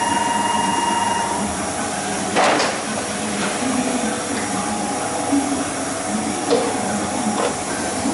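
Komori offset printing press inching its plate cylinder round while a new plate is wrapped onto it: a steady mechanical hum, with a short hiss about two and a half seconds in and a couple of light clicks later.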